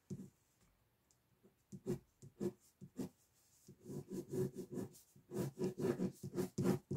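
Pen scratching on paper in short sketching strokes: a few scattered strokes at first, then quick back-and-forth hatching in the second half.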